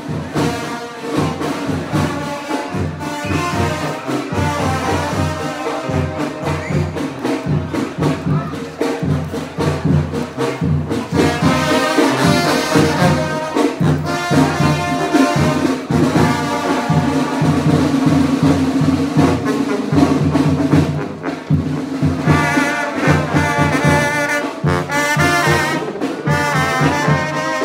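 Tamborazo brass band playing: trumpets and trombones carry the melody over a steady, evenly paced drum beat.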